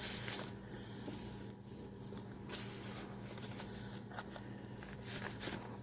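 Paper pages of a handmade journal rustling as they are turned and handled, with a few sharper paper flicks.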